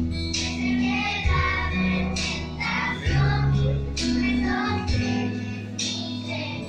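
Children's choir singing over a keyboard accompaniment that holds long, sustained bass notes.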